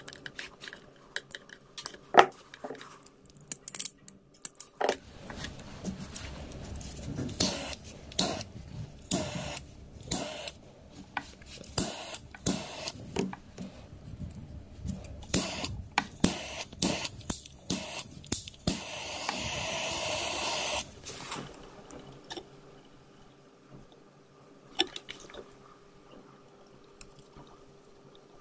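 Handling noise of hands working on wiring at close range: irregular small clicks, taps and rustles of cable and plastic insulation, with a steady hiss lasting about two seconds a little past the middle.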